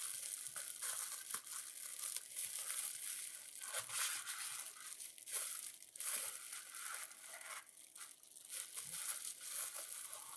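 Packing material crinkling and tearing in irregular handfuls as it is pulled away from a candle whose glass jar is broken.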